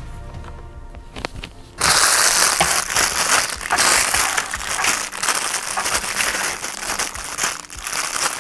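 Clear plastic toy packaging crinkling loudly as it is handled and unwrapped. It starts suddenly about two seconds in and goes on in irregular crackles.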